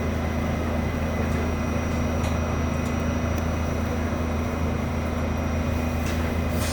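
Steady hum inside an R68 subway car, its equipment running with a low drone and a faint high whine, and a few light clicks.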